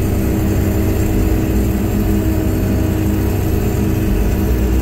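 Truck engine running steadily with a heavy low rumble, heard from inside the cab.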